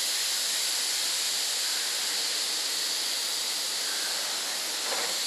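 Compressed-air paint spray gun spraying paint in one steady, continuous hiss.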